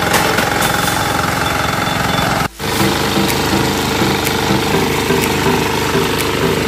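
Engine of a Kohler-powered 10 hp power tiller running steadily as the tiller works between sugarcane rows. The sound cuts out for a split second about two and a half seconds in.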